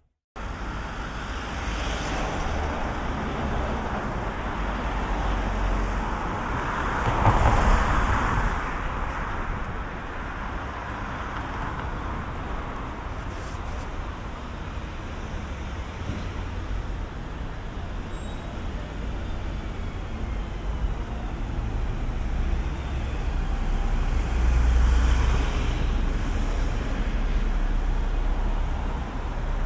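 Road traffic on a city street: a steady wash of cars going by, with two louder vehicles passing about seven seconds in and again near the end. It is picked up by the in-ear binaural microphones of the Sennheiser Ambeo headset.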